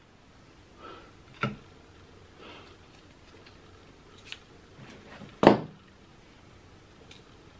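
King crab leg shell being cut with kitchen scissors and broken apart by hand: a few scattered sharp cracks and clicks, the loudest about five and a half seconds in, with quiet handling noise between them.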